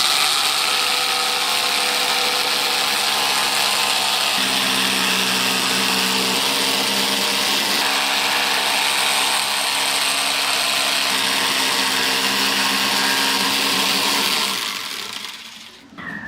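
Small handheld power tool running steadily with a motor whine over a broad hiss, then dying away near the end.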